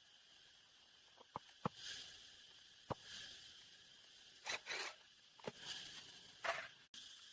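Hand work on engine parts: scattered sharp clicks of tools and metal parts, with several short scraping sounds in between. Near the end the sound drops out abruptly.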